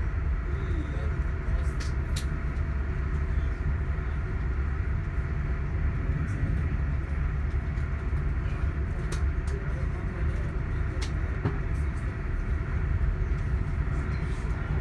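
Running noise of a passenger train heard from inside the carriage at speed: a steady low rumble of wheels on the track, with a few faint clicks.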